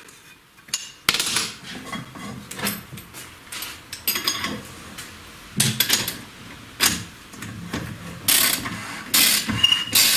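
Irregular metallic clicks, clinks and knocks of a reamer being fitted and worked through the camshaft bearing bed of a VAZ 21099 cylinder head, truing the bores.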